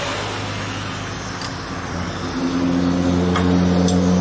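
An engine running steadily nearby, its hum growing louder about halfway through, with a few faint light ticks.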